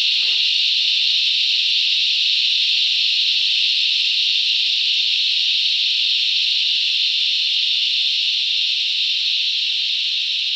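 Dense chorus of cicadas: a deafening, steady high-pitched buzz that holds at full strength, easing slightly near the end.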